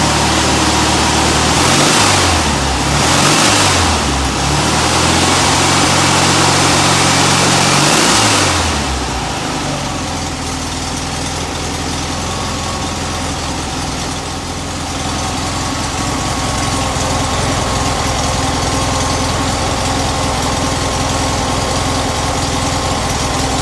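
1968 Karmann Ghia's air-cooled flat-four engine revved by hand at the carburettor: two quick blips, then a rev held for about four seconds that falls back. It settles into a steady idle about nine seconds in.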